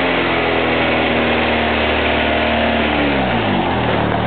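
Acura Integra GS-R's 1.8-litre VTEC four-cylinder heard through its exhaust, held at a steady raised engine speed, then falling back to idle about three and a half seconds in.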